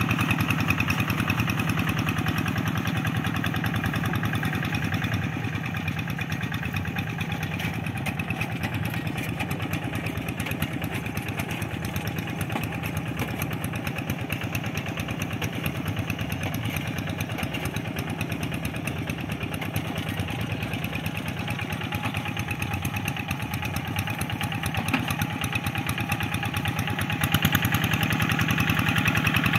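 Single-cylinder diesel engine of a Kubota two-wheel walking tractor running steadily with an even, rapid firing beat while plowing a flooded rice paddy. It gets noticeably louder near the end.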